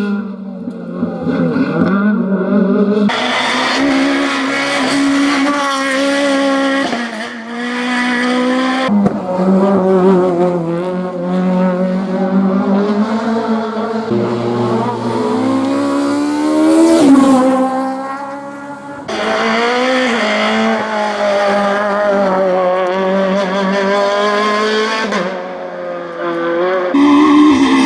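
Front-wheel-drive Maxi kit rally cars at full throttle, engines revving hard and rising and falling in pitch through gear changes, in several short passes joined by abrupt cuts.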